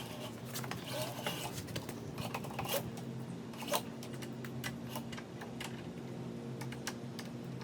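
Irregular light clicks and taps of parts being handled as the lawn mower's starter pull rope is fed through its rope guide on the handle and the guide's wing nut is worked, over a low steady hum.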